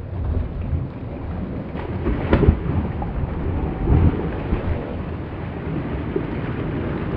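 A person splashing through shallow water and jumping into a deep pool: a loud splash about two and a half seconds in and another about four seconds in, over a steady rumbling noise.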